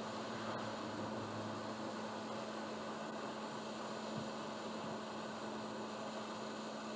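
Hot air rework station blowing steadily while solder on a board pad reflows, an even airflow hiss with a constant low hum underneath.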